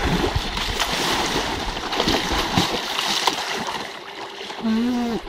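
Water splashing and churning, with many short splashes, as people move about while swimming. Near the end a single short voice call cuts through.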